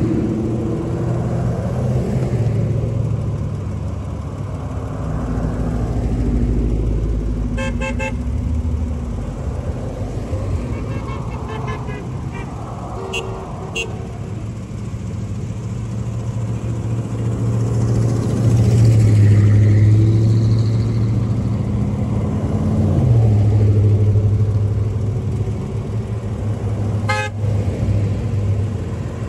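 A line of pickup trucks and cars passing on a highway, engines running and swelling as each goes by, one falling in pitch a little past the middle. A few short horn toots, with a clear one near the end.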